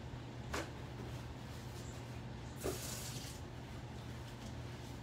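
Quiet kitchen sounds over a steady low hum, with a light click about half a second in and a brief hiss a little past halfway, from someone working at the sink.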